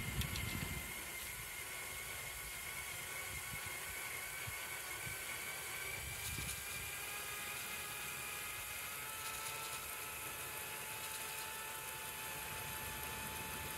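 LEGO L motor, wired straight to a 3-cell LiPo battery, raising a LEGO Technic crane boom through its gearing: a steady whine with several tones that drift slowly in pitch. There is a brief low knock right at the start.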